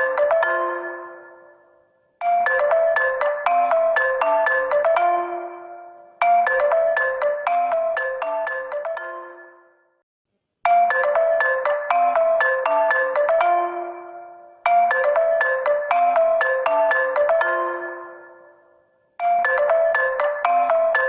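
HONOR phone ringtone playing on a loop: a quick melody of short struck notes over a few low notes, starting again about every four seconds and ringing off between repeats.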